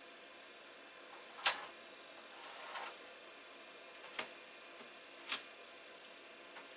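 Four separate sharp clicks over a faint steady hiss, the first, about a second and a half in, the loudest.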